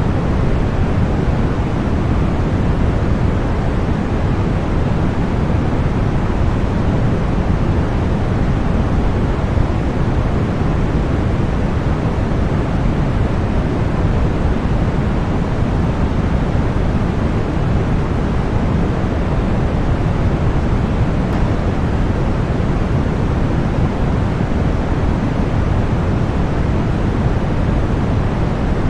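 Continuous synthetic white noise for sleep and tinnitus masking: a steady, unchanging hiss, fuller in the bass than in the treble.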